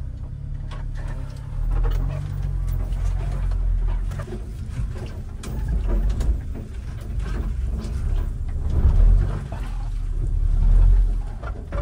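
1993 Subaru Sambar kei truck's 660 cc engine running at low speed, heard from inside the cab, with scattered knocks and rattles as the loaded truck goes over a bumpy dirt trail.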